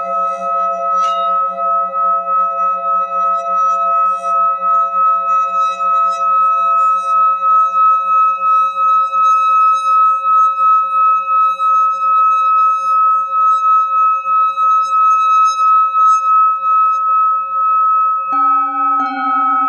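Hand-held singing bowl rubbed around its rim with a mallet, singing a steady high tone with a slow, even pulse. About eighteen seconds in, a second bowl is struck and rings in with lower tones.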